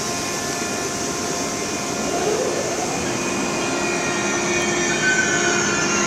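Thameslink class 700 electric multiple unit running in towards the platform, a steady electric hum and whine with several held tones that grows slowly louder as it approaches.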